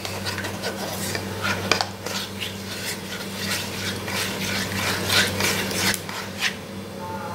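Irregular scraping and clinking of a kitchen utensil against cookware, over thick sugar syrup bubbling in the pan.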